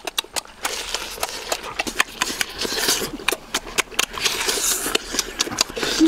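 Close-up wet chewing and lip-smacking of people eating cooked octopus: a rapid, irregular string of smacks and clicks.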